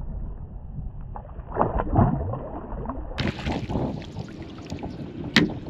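A KastKing Crixus baitcasting reel on a rod dunked in salt water and lifted back out, with water splashing and dripping off it. The sound turns brighter and hissier about three seconds in, and there is a sharp click near the end.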